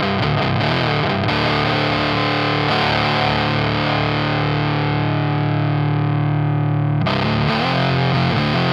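Electric guitar played through a Dolamo D-2 fuzz pedal, heavily fuzzed: a chord is struck and left to ring for about six seconds, its top slowly fading, then riffing starts again about seven seconds in.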